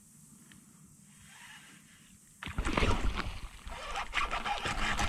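Quiet, then about two and a half seconds in a sudden loud commotion of splashing and knocks starts and carries on: a bass striking the topwater frog lure and being fought from the kayak.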